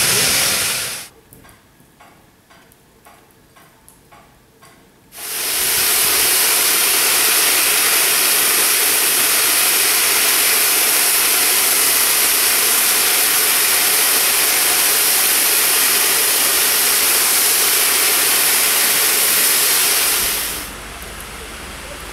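Steam locomotive letting off steam in a loud, steady hiss. The hiss breaks off about a second in, leaving a few quiet seconds with faint regular ticking, then starts again suddenly and holds until it falls away near the end.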